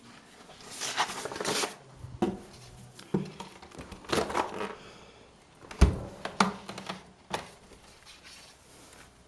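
Lace net curtain rustling and handling noise as a camera is pushed against and through it, in uneven swells with several sharp knocks, the loudest about two-thirds of the way through.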